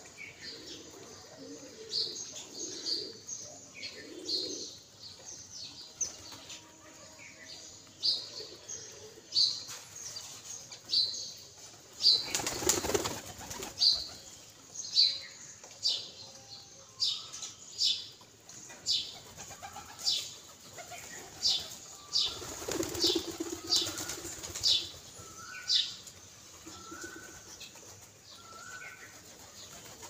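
Domestic pigeons' wings flapping in two bursts, about halfway through and again a few seconds later, over a small bird's short high chirps repeated about once a second.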